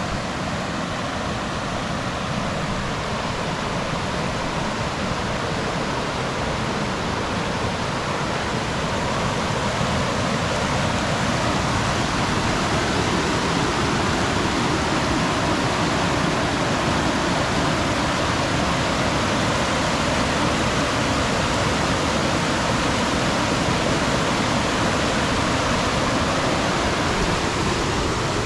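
Fast-moving river rushing steadily over a small waterfall, running high and swollen with spring water. It grows slightly louder about a third of the way through.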